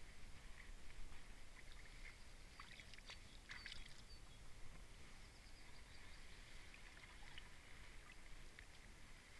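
Near-silent pond-side background with a few faint crinkles of a plastic sheet being handled, bunched about three to four seconds in.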